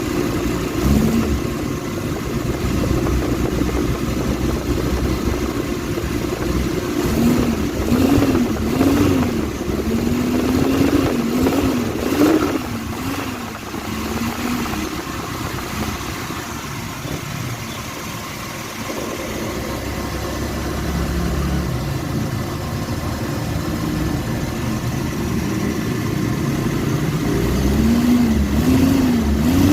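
Suzuki F10A van engine running at idle and revved in short blips, a run of quick rises and falls about a third of the way in and again near the end. It is a test run on new, re-gapped spark plugs, to check that the misfire and loss of power are gone.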